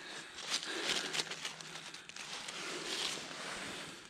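Dry fallen leaves crackling and rustling as a dead coyote's body is shifted and handled on them: an irregular run of small crackles and rustles.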